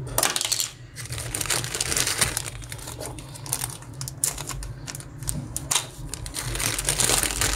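Small clear plastic accessory bags crinkling and rustling as they are handled, in many short, irregular crackles.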